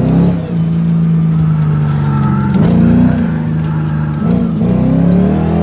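Car engine pulling under acceleration, its note climbing and then dropping back a few times as the automatic transmission shifts gears.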